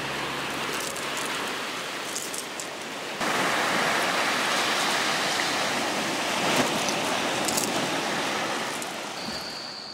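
Surf washing onto a beach: a steady rushing noise that turns louder about three seconds in.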